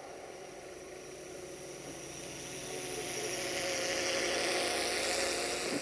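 Diesel train approaching: a steady engine drone with a rising rush of wheel and rail noise that grows louder from about two seconds in.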